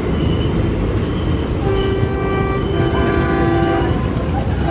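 WDM-3A diesel locomotive passing at speed with a heavy rumble of engine and wheels. Its horn sounds in two blasts back to back from about two seconds in.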